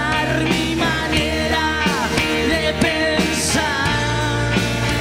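Rock band playing live, with electric guitars and drums, and a man singing at the microphone.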